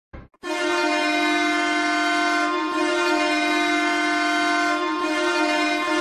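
Ottawa Senators' arena goal horn blasting a steady, sustained chord. It starts abruptly just under half a second in, after a brief click.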